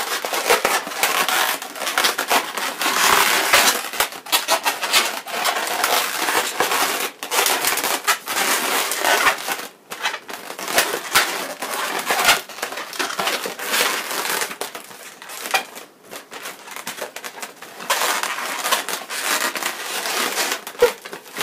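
Latex twisting balloons rubbing and crinkling against each other and against the hands as a balloon figure's arms are bent and repositioned. The handling noise is dense and irregular, with brief lulls about ten and sixteen seconds in.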